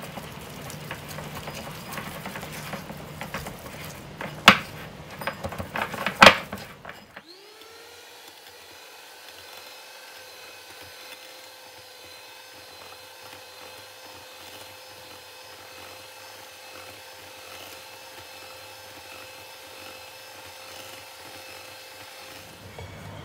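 Two sharp clicks, then a small electric motor spins up and runs with a steady whine.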